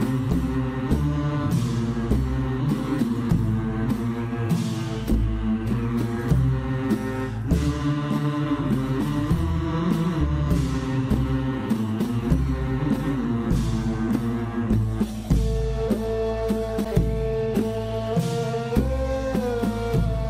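Instrumental background music with a steady beat; a long held melody note comes in over the last few seconds.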